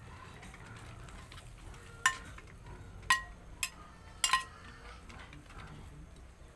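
Metal spatula knocking against a ceramic bowl as boiled spaghetti is scraped out into a pan of sauce: about five sharp, ringing clinks, starting around two seconds in and ending about halfway through, two of them in quick succession.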